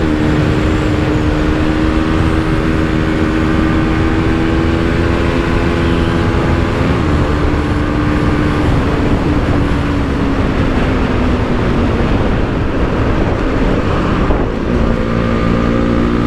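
Bajaj Pulsar NS200's single-cylinder engine running under way, heard from the moving motorcycle with heavy wind rush. The engine note climbs a little, falls and fades over the middle and later part, dips briefly, then picks up again near the end.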